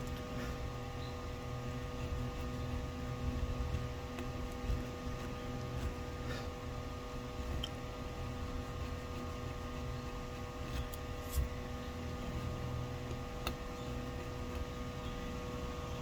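Steady electrical hum made of several fixed tones over a low rumble, with a few faint, isolated light clicks.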